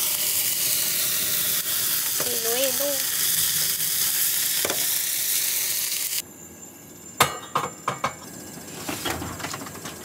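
Scallops sizzling in butter and soy sauce in a foil-lined frying pan over a gas burner, with a spatula moving them about. The sizzle cuts off abruptly about six seconds in, giving way to quieter light clicks and knocks.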